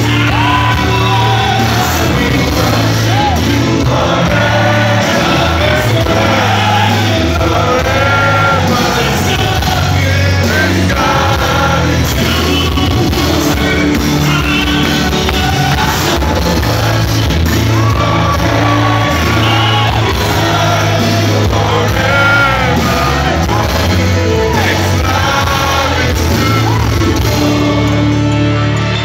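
Live gospel worship music: a male lead singer sings over a loud band with a steady bass line.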